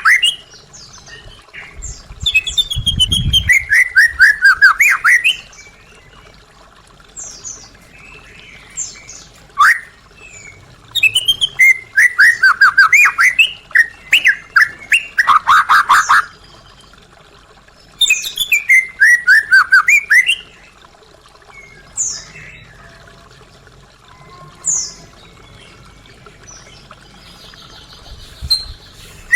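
White-rumped shama (murai batu) singing. Loud bursts of rapid falling whistled notes come in three long phrases, with single short whistles in the pauses between them.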